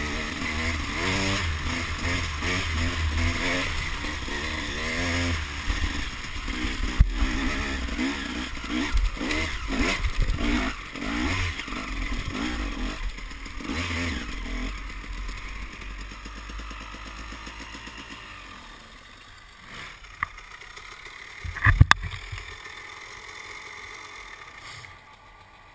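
Dirt bike engine being ridden, the revs rising and falling repeatedly for the first fifteen seconds or so, then dropping back to a quieter low run or idle. A brief sharp clatter comes a little past twenty seconds in.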